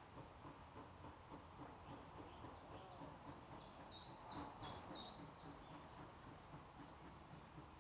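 Faint, regular exhaust beats of a distant steam saddle-tank locomotive working a train, with a songbird singing a quick run of short high notes in the middle.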